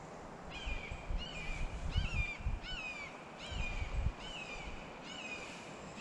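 A bird calling over and over, a short falling call repeated about every two-thirds of a second, agitated enough to draw comment. Low rumbling comes and goes underneath.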